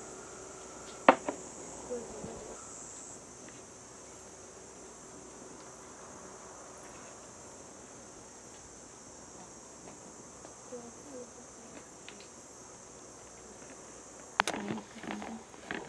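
Steady, high-pitched insect chirring, with one sharp knock about a second in. Near the end come soft knocks and handling sounds as dough is pressed into a metal tray.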